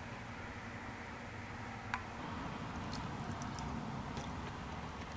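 Faint eating sounds: a fork clicks once against a metal plate about two seconds in, followed by soft chewing and a few light ticks, over a low steady room hum.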